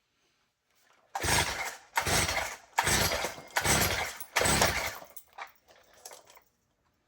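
Stihl FS55 two-stroke string trimmer being pull-started: five quick pulls on the recoil starter, each a short rasping stroke as the engine turns over without starting, followed by two fainter tugs.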